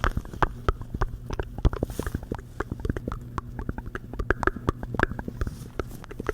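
Gloved hands rubbing and flexing close to the microphone, making a rapid, irregular run of small crackles and clicks.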